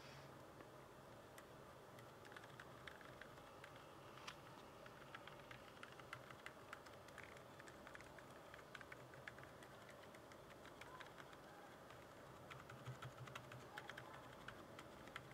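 Faint, irregular keystroke clicks from typing on a mechanical keyboard fitted with Akko silent switches, picked up by a microphone at about ear height. The clicks come more thickly near the end.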